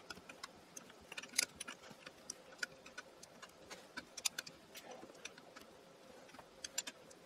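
Faint, irregular metallic clicks of a wrench on the screws of a tapered bushing as they are tightened a little at a time, drawing the pulley onto the bushing.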